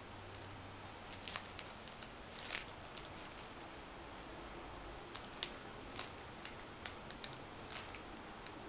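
Kittens pawing and scrambling at a crinkly fabric tunnel toy: faint, scattered clicks and crinkles, the sharpest about two and a half seconds in.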